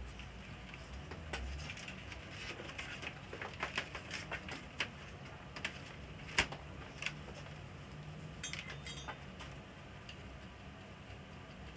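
Scattered small clicks, taps and light metallic clinks of parts and tools being handled while an LCD TV is taken apart for backlight repair, with a short burst of tinkling about eight and a half seconds in.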